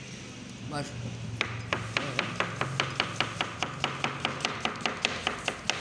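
Kitchen knife slicing a cucumber on a plastic cutting board: quick, even chops about five a second, starting about a second and a half in.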